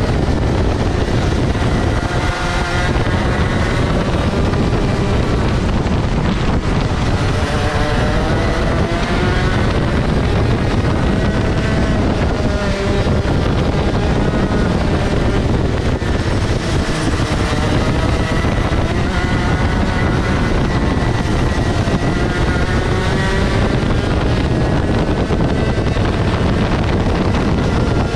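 Rotax Max Senior 125 cc single-cylinder two-stroke kart engine at race pace, its pitch rising and falling over and over as it accelerates and slows through the lap. Heavy wind rush on the helmet-mounted microphone.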